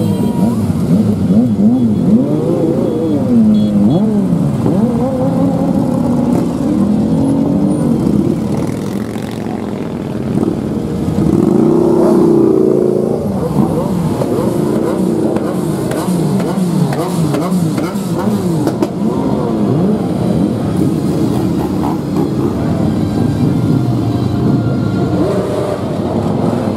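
Many motorcycles riding past in a slow column, their engines revving up and down and overlapping one another.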